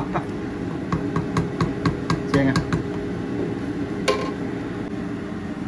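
A wooden spoon clicks and taps against the metal side of a pot of boiling fish congee while stirring, about five light clicks a second, then one sharper knock about four seconds in. A steady low hum runs underneath.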